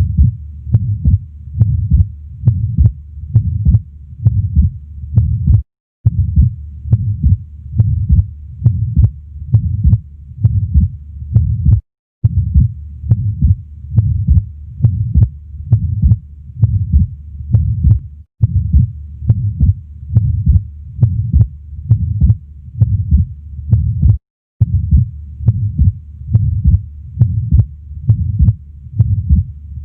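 Heart sounds auscultated at the left base, with the heart murmur of an atrial septal defect: a steady run of low lub-dub beats. Short breaks in the sound come about every six seconds.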